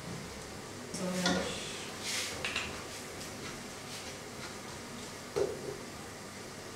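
Cooking utensils and cookware clinking and knocking: a cluster of knocks about a second in, a brief rush of noise soon after, and one more knock near the end.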